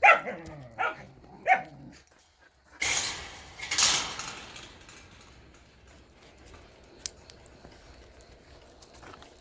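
A dog barking three times in quick succession, then a burst of rustling, scuffling noise lasting about a second and a half.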